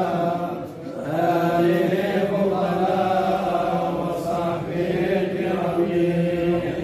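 A group of men chanting together in unison: an Islamic devotional chant (dhikr/salawat) in long, held melodic lines. The voices drop out briefly for a breath about a second in.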